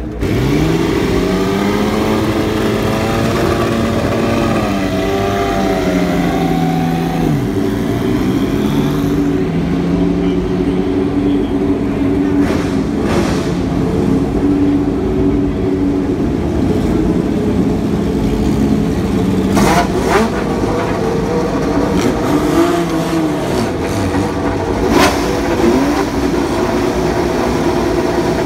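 Historic Ferrari Formula One car engine running, coming in loudly at the start and held at a rough idle with repeated throttle blips that rise and fall in pitch. A few sharp cracks stand out around the middle and near the end.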